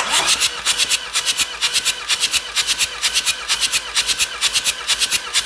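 Ford Mondeo III 2.0 Duratorq turbodiesel engine turned over on its starter for a compression test, a fast, even rhythm of hissing chuffs that starts abruptly. The second cylinder builds to about 28 bar.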